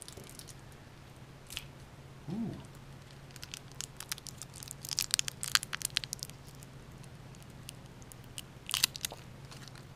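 Paper wrapper of a ginger candy crinkling as it is picked open by hand, in crackly bursts about halfway through and again near the end.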